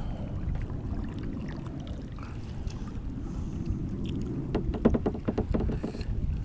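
Kayak moving through the water: a steady low rumble of wind on the microphone and water against the hull, with a short run of paddle splashes and drips a little past halfway.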